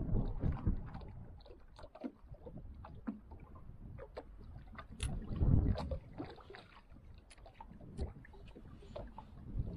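Small waves lapping and slapping against an aluminum bass boat's hull, with louder surges at the start and about five seconds in. Scattered light clicks and knocks throughout.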